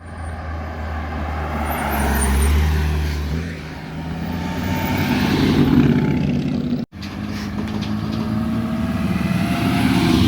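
Sports cars driving past one after another, engines accelerating; each pass swells and fades, and the sound cuts sharply to the next car about seven seconds in.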